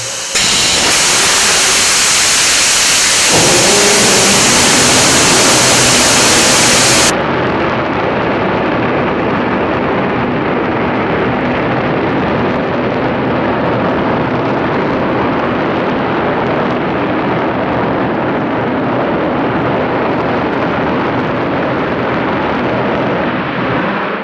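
Korean launch vehicle's 7-tonne-class liquid-propellant rocket engine firing in a ground hot-fire test: a very loud, steady roar that starts abruptly. About seven seconds in its sharp hiss drops away suddenly, leaving a deeper roar that falls away at the very end as the engine shuts down.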